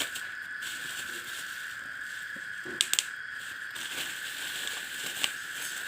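Handling sounds of a new PE28 carburetor and its packaging: light rustling with three quick sharp clicks about three seconds in and another near the end, over a steady high-pitched whine.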